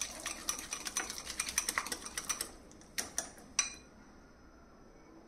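Metal wire whisk beating a thick hung-curd dressing in a glass bowl: rapid, irregular clicking and scraping for about two and a half seconds, then three sharp clicks of the whisk against the bowl.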